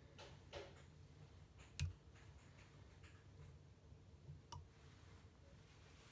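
Near silence with a few faint clicks and light rustles from a wire whip-finish tool being worked around the thread to tie off the head of a fly. The sharpest click comes about two seconds in, another about four and a half seconds in.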